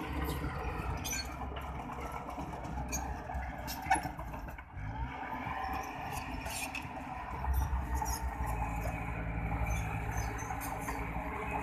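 Small Komatsu crawler bulldozer's diesel engine running steadily as it pushes fill, louder for a few seconds past the middle as it works harder. Scattered clanks come from the steel tracks, with one sharp knock about four seconds in.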